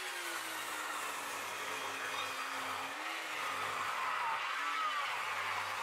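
Power woodworking machine running as a long timber plank is fed through it, a steady machine noise with a humming motor pitch that sags and recovers under the load of the cut.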